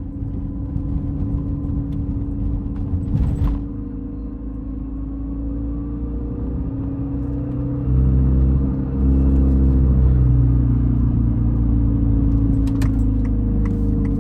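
Car engine running steadily while driving, growing louder and deeper from about eight seconds in as it pulls harder, with a brief dip just after. A few light clicks near the end.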